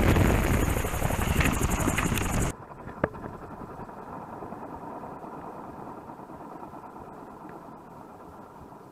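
Unpowered gyroplane with its engine out after running dry of fuel, on the grass: loud wind and rolling rush until it cuts off abruptly about two and a half seconds in. Then a much quieter rush from the freewheeling rotor slowly fades, with a single click just after the cut.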